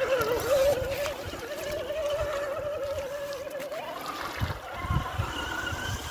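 Traxxas TRX-4 Defender RC crawler's electric motor and drivetrain whining as it drives through shallow water, the pitch wavering with load and then rising about four seconds in as it speeds up toward the shore. Water splashes around its wheels.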